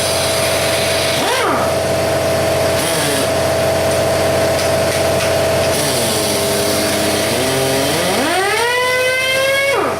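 Shop air compressor running with a steady hum, while a whine swoops down and up in pitch several times, climbing steeply near the end and then dropping away abruptly.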